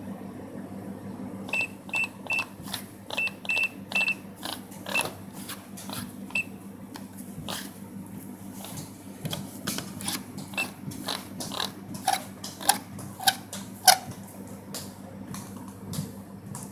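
Vending machine selection keypad being pressed, each key press giving a short, high electronic beep, about ten in the first few seconds. A run of clicks and taps on the keys follows without beeps, over a steady low hum.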